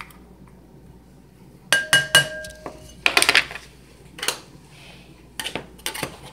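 Kitchen utensils clinking: two sharp metallic strikes about two seconds in that ring briefly, as from a small metal measuring cup knocked against a spoon or bowl. A short rattling burst follows, then several lighter knocks as the cup and spice jars are handled on a wooden table.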